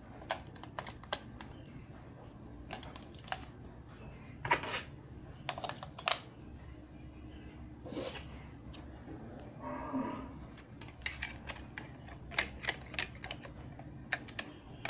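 AA batteries being pushed into the spring contacts of a plastic RC helicopter transmitter's battery compartment, then the compartment cover fitted: a scatter of short plastic clicks and knocks in small clusters, with a quick run of clicks near the end as the cover goes on.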